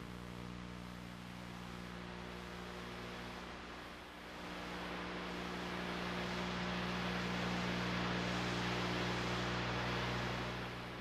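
Steady low hum with a hiss that grows louder about four seconds in, and no music.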